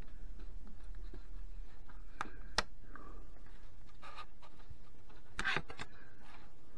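Craft knife scratching and cutting through a thin laser-cut wooden kit sheet on a cutting mat, with two sharp clicks a little over two seconds in and scrapes as the sheet is shifted and turned.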